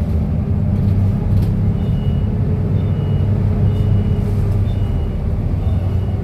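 Cummins diesel engine of a King Long KL6112U1 city bus running steadily while under way. From about two seconds in, a two-note electronic beep repeats about once a second.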